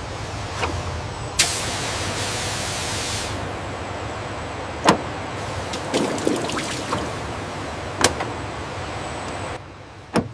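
Steady machinery noise of a car assembly line, with a burst of hissing air about a second and a half in and a few sharp clicks or knocks scattered through. The background drops off suddenly near the end.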